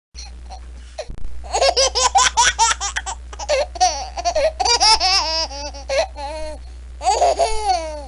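A baby laughing: a quick run of short giggles starting about a second and a half in, then longer drawn-out laughs that rise and fall in pitch.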